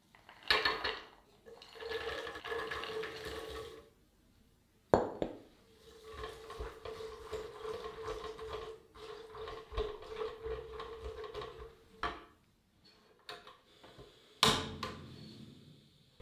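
Chopped roasted walnuts tipped from a bowl into thick caramel in an enamel saucepan, then stirred through with a silicone spatula: a rattling pour, sticky stirring and scraping, and a few sharp knocks against the pot.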